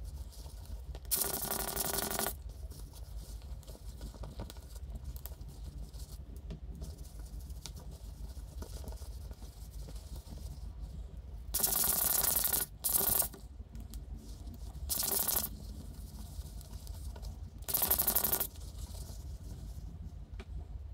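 Microfibre cloth rubbing and wiping over a wristwatch's case and rubber strap, in several short scratchy bursts of about a second each, over a low steady hum.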